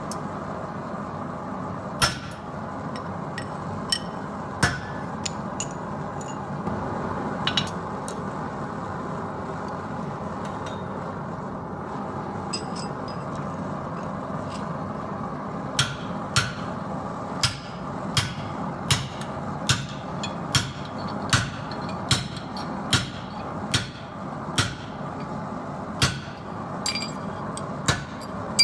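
Hand hammer striking hot steel in blacksmith forging work. It starts with a few scattered single blows, then from about halfway settles into steady strikes of roughly one a second, over a steady rushing noise.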